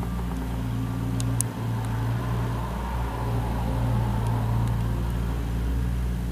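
Mustang 2054 skid steer loader's engine running steadily, with a couple of sharp clanks about a second and a half in.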